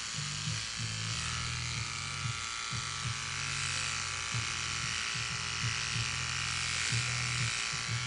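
Electric hair clippers running with a steady buzz as they shave a head down to stubble. The hum briefly wavers several times as the blades pass over the scalp.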